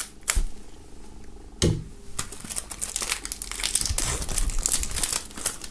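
Plastic shrink wrap on a CD case being cut open with a knife and peeled off: a couple of sharp clicks in the first two seconds, then steady crinkling and tearing of the plastic foil from about two seconds in.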